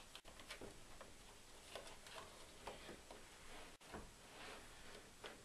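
Near silence, with a few faint, scattered clicks and taps of small chainsaw parts being handled and pushed into place, as a heat shield is fitted over the inlet rubber.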